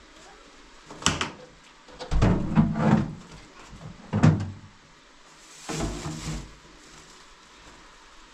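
Knocks and clatter of kitchen things being handled: a sharp knock about a second in, a run of clattering a little after two seconds, another sharp knock just after four seconds, and a short scraping rustle near six seconds.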